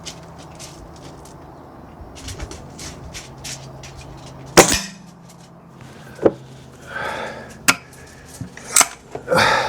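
Air Arms TX200 Hunter Carbine, a .177 underlever spring-piston air rifle, fires once about halfway through with a single sharp crack, followed by several lighter clicks and short rustling handling noises.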